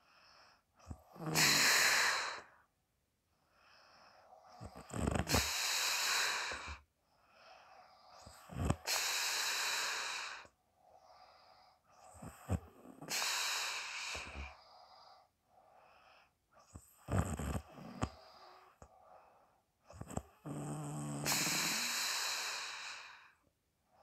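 A sleeping person snoring heavily, a loud rasping breath about every four seconds, six in all, some with a low buzzing rattle.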